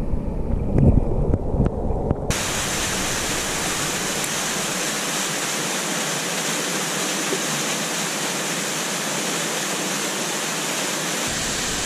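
Mountain torrent heard from under water: a muffled, bass-heavy rush with a few low knocks. After about two seconds it cuts to the steady, full rush of the stream running over rocks in the open air.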